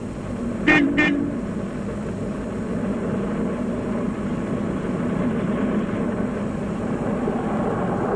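Car horn giving two short toots about a second in, followed by a car engine running steadily as the car drives up.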